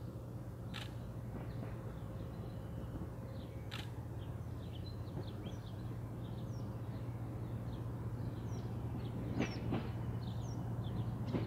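NSWGR 400-class rail motor 402 with its twin 6-71 diesel engines running as it approaches, a steady low hum that slowly grows louder. Birds chirp throughout, and there are a few sharp clicks.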